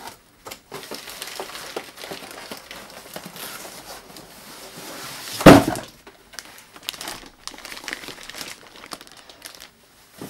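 Plastic wrapping film crinkling and rustling as a plastic-wrapped electric unicycle is lifted out of a cardboard box. There is a single loud thump about five and a half seconds in, followed by lighter rustles and small knocks.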